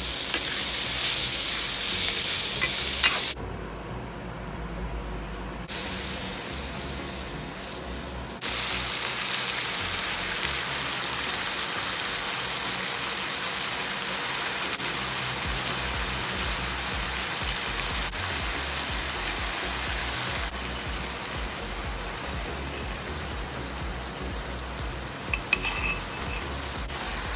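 Stir-fry sizzling in a hot wok, a steady hiss that is loudest for the first three seconds and drops in level around three seconds in, then returns. A few clicks sound near the end.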